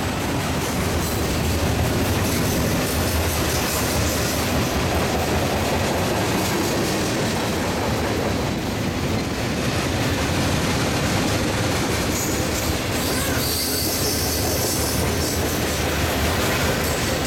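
Freight train cars rolling past close by: a steady, unbroken noise of steel wheels on the rails.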